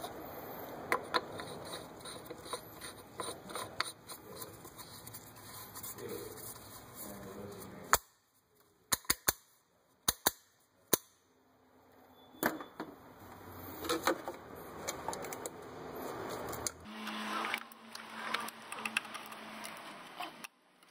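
Hands working on plastic engine-bay parts: scattered light clicks, knocks and rattles, with a few sharper single clicks about eight to eleven seconds in.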